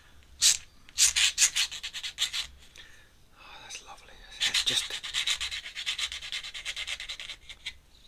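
Ink drawing tool scratching quick strokes across drawing paper. A few separate loud strokes come in the first half, then a rapid run of short hatching strokes, several a second, from about four and a half seconds in until near the end.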